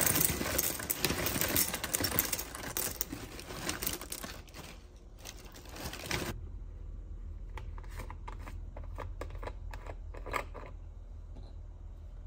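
Busy clattering and scraping of small hard objects, dense for the first four seconds or so. A sudden cut about six seconds in is followed by a sparse run of light clicks and taps.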